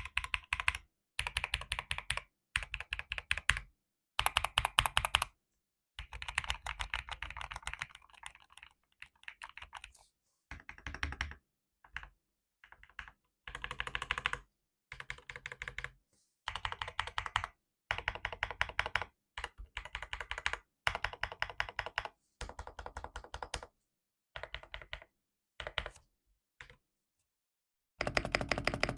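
Typing on a GMK67 V2 mechanical keyboard with Akko V3 Cream Yellow Pro linear switches: fast keystroke clicks in bursts of a second or two, broken by short pauses.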